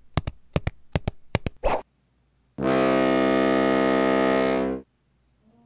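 Cartoon sound effects: a quick, uneven run of about ten sharp clicks, like sneaking tiptoe steps, then one loud held synthesizer-like note, buzzy and brassy, for about two seconds that cuts off abruptly.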